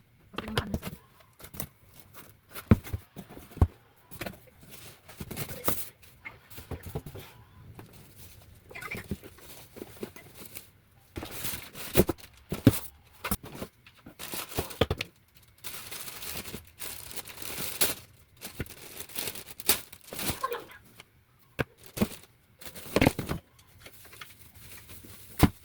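Monitor packaging being opened and handled: cardboard and plastic wrapping rustling, tearing and crinkling, with irregular knocks and clicks as parts are moved and set down.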